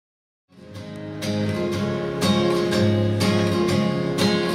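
Acoustic guitar strummed in a steady rhythm, playing the intro of a song before the singing comes in. It fades in from silence about half a second in.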